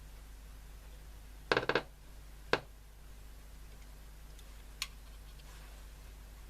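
Sharp clicks from a transistor radio's circuit being probed and shorted to chassis while hunting for a noisy transistor: a quick run of clicks about one and a half seconds in, a single louder click a second later, and a faint one near the end, over a steady low hum.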